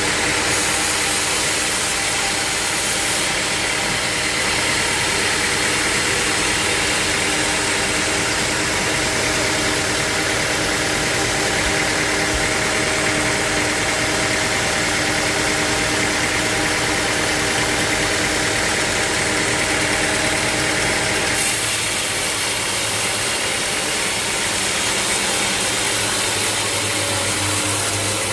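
Sawmill machinery running steadily, a loud motor hum with constant tones and no cutting strokes; about three-quarters of the way through the sound shifts, the high hiss changing and a low hum coming up.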